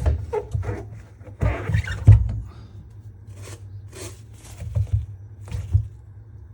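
Irregular short bursts of rubbing and scraping against a front-loader washing machine's rubber door seal as it is wiped and scrubbed, over a low steady hum.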